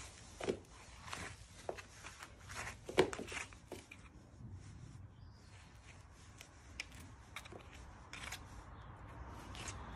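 Hoof pick scraping packed straw bedding and manure out of a shod horse's hoof: a run of irregular scrapes and clicks, the sharpest about half a second and three seconds in.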